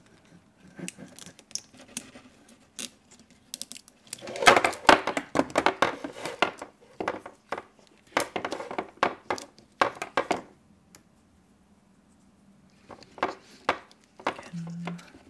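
Hands handling a racing quadcopter frame and its wiring: a run of small clicks, taps and rattles of plastic and metal parts, busy for several seconds, then a pause before a few more.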